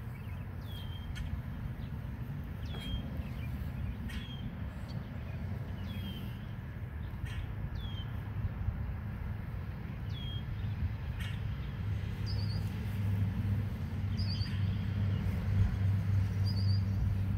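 A small bird calls again and again with short, high, down-slurred notes every second or two, adding a few quick trills later on. Under it runs a low rumble, typical of a motor vehicle, that grows into a louder steady hum in the second half.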